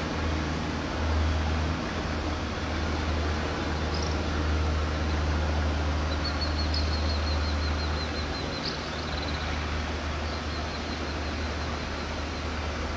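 A steady low rumble and hiss that eases off about two-thirds of the way in. Over it, a small bird gives a rapid trill of evenly repeated high chirps about halfway through, and a shorter trill follows a little later.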